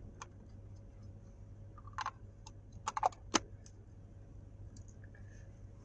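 Light clicks and taps of a clear plastic mini snow-globe toy being handled and fitted together: one click near the start, a pair about two seconds in, and a quick cluster a second later ending in the loudest snap.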